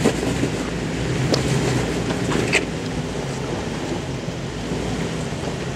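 Jeep Wrangler TJ Rubicon's 4.0-litre straight-six running at low revs as it crawls over rocks, under a steady rush of wind on the microphone. Two short clicks, about one and two and a half seconds in.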